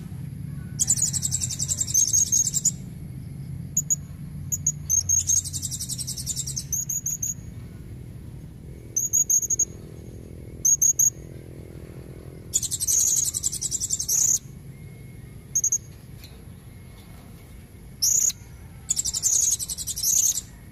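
Female blue-crowned hanging parrot calling: high, thin, rapid buzzy trills lasting one to two seconds each, four times, with short sharp chirps in between. The call is used as a lure to draw in males.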